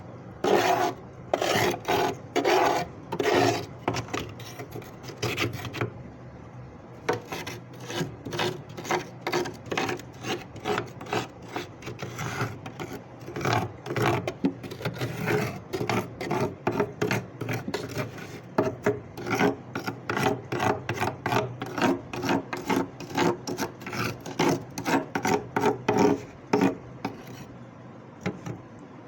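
Freezer frost being scraped off in repeated short, rasping strokes, a couple a second, that stop shortly before the end.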